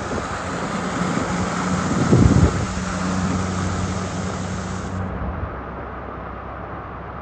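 Car traffic on a flooded road in heavy rain: a steady rush of rain and water with a low engine hum, and a low blast of wind on the microphone about two seconds in.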